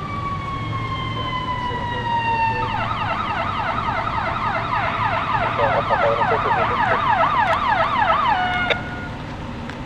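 Emergency vehicle siren: a slow falling wail, then from about three seconds in a fast up-and-down yelp, cutting off suddenly near nine seconds.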